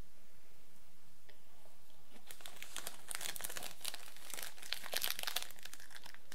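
Cereal bar's wrapper crinkling as it is handled: a run of crackles that starts about two seconds in and lasts about three seconds, over quiet room tone.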